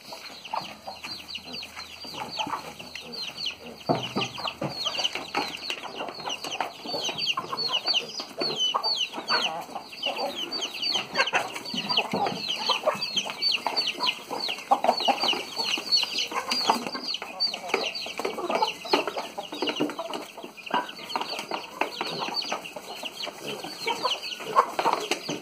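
A flock of hens and chicks clucking and peeping while crowding round a feed trough, with many short, high, falling peeps all the way through.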